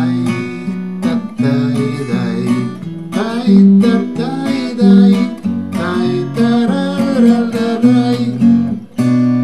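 Acoustic guitar with a capo, strummed and picked as the instrumental introduction to a song. It comes in suddenly with a chord and then moves through changing chords and melody notes.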